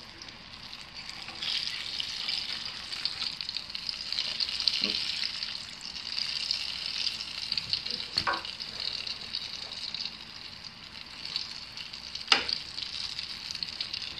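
Hot oil sizzling and crackling steadily as a batch of olie bollen deep-fries in a stainless pot. Metal tongs clack against the pot a couple of times, the sharpest about twelve seconds in.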